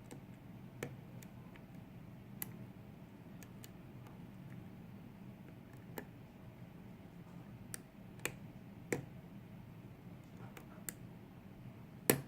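Small, irregular metallic clicks of a lock pick and tension wrench working the pins of a kik cylinder lock, about a dozen, with the loudest one near the end.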